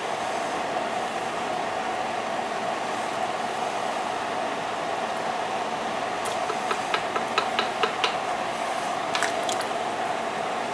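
Large stainless steel stockpot of soup cooking on a burner: a steady rushing hiss, with a quick run of light clicks a little past the middle and two more shortly after.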